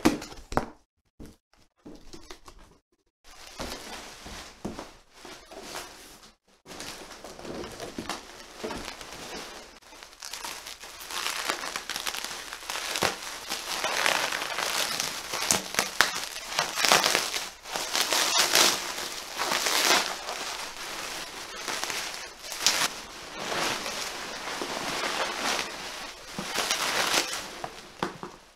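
A cardboard box is opened with a few sharp rips and knocks in the first seconds. Then bubble wrap is pulled and handled, a continuous crinkling full of small crackles that grows louder about twelve seconds in.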